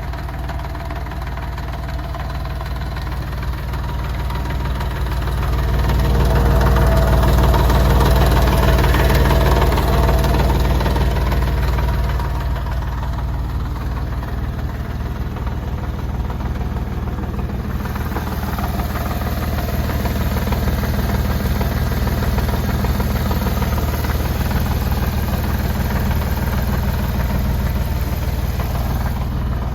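Porsche 996 Carrera 4's flat-six engine running steadily, louder for a while from about five seconds in. It carries an abnormal noise that the owner says has come back.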